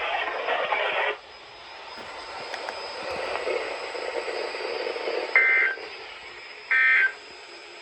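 NOAA Weather Radio SAME end-of-message data bursts: two short, loud two-tone digital squawks about a second and a half apart near the end, after a few seconds of faint radio hiss. They signal the end of the weekly test broadcast.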